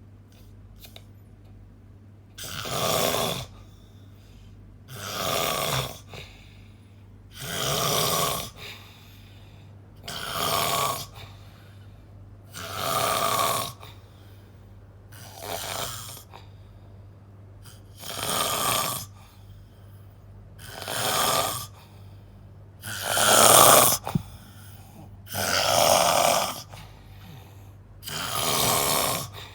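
A person snoring loudly in a steady rhythm, one snore about every two and a half seconds, eleven in all, the one a little past the middle the loudest.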